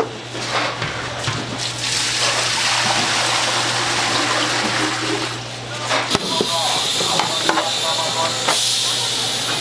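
Water running and splashing in a kitchen, steady for several seconds and changing texture about halfway through, over a constant low hum.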